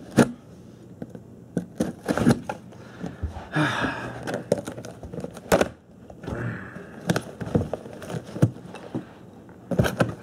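A cardboard shipping box being cut with a knife and pulled open by hand: irregular sharp knocks and scrapes, with two longer tearing, rustling stretches, the first about three and a half seconds in and the second about six seconds in.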